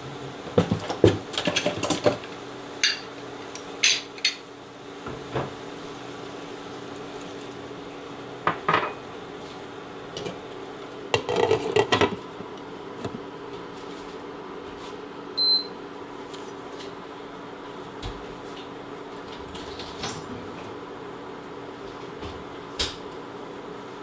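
Utensils clinking and scraping in a pan of stir-fried rice cakes and vegetables, with scattered knocks, then a clatter about eleven seconds in as a glass lid is set on the pan. A few seconds later comes a short high beep from the induction cooktop's controls, over a steady faint hum.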